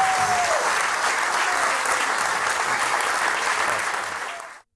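Theatre audience applauding steadily, then the applause fades and cuts off abruptly near the end.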